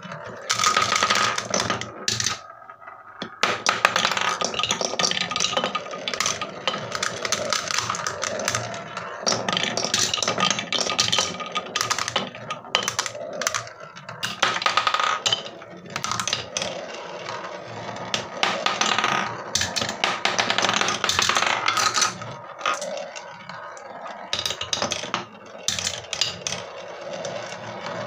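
Marbles rolling and clattering down a wooden marble run, a dense stream of clicks and rattles as they knock against the wooden tracks and each other. There is a short lull about two seconds in.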